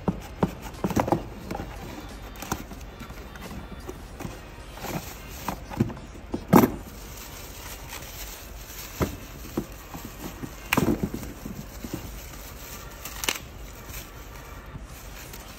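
Cardboard box being cut open with scissors and handled, with irregular snips, scrapes and knocks; the loudest knock comes about six and a half seconds in.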